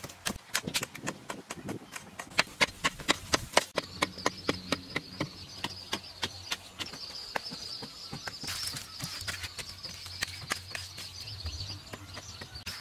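A quick, irregular run of sharp knocks and taps from hand work, several a second. About four seconds in they thin out, and a steady high insect buzz takes over.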